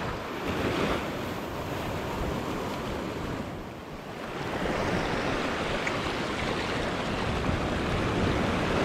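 Sea surf breaking and washing over rocks at the waterline: a steady wash of noise that swells about a second in, eases briefly past the middle, then builds again.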